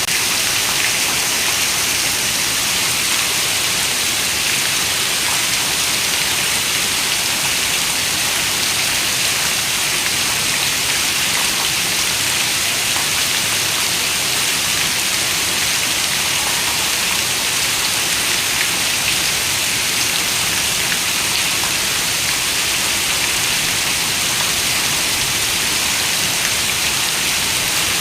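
Steady, heavy rain: an even hiss with faint scattered drop ticks.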